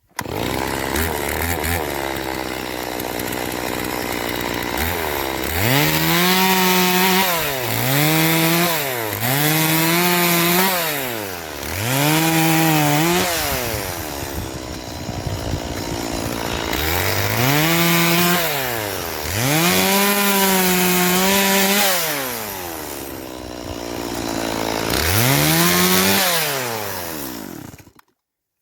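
Two-stroke chainsaw cutting firewood. It idles for the first few seconds, then revs up and holds high through a series of cuts, dropping back to idle between them. It stops just before the end.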